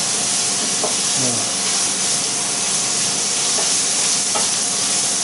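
Onions and garlic frying in oil in a stainless steel frying pan, browning: a steady sizzling hiss.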